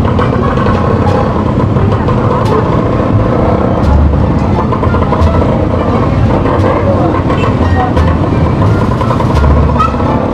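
Steady street-traffic noise with motorcycle engines running close by, heard from within the traffic, with wind repeatedly buffeting the microphone in deep thumps.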